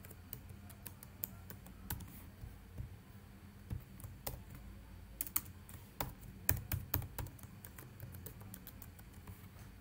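Computer keyboard being typed on: irregular keystrokes entering a password, some in quick runs, with a short pause early on between bursts.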